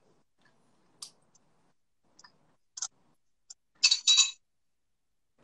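Light clicks and clinks of tableware, then two louder, sharper clinks in quick succession about four seconds in.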